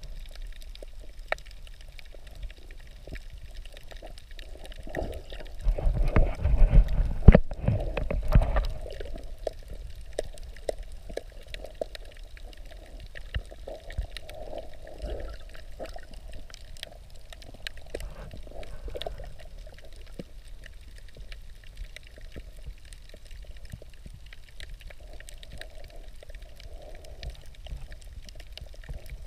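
Underwater sound picked up by a camera in shallow sea water: a steady muffled water noise with many scattered sharp clicks, and a louder low rushing surge from about six to eight and a half seconds in.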